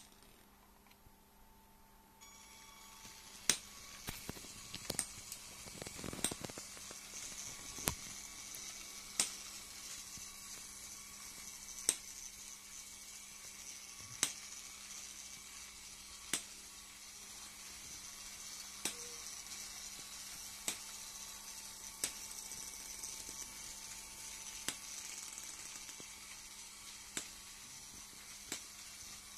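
LEGO train motor starting up about two seconds in and then running steadily with a faint high whir, a sharp click every two to three seconds as the train goes round the loop of track.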